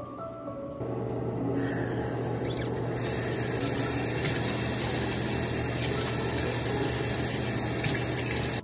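Water running from a chrome bathroom tap into a sink, with a steady low hum under it. The rush of water grows stronger in steps over the first three seconds as the tap is turned further open.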